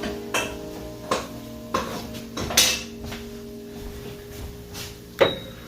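Kitchen utensils and cookware clinking and knocking: about six separate sharp knocks spread over a few seconds, the one near the end ringing briefly.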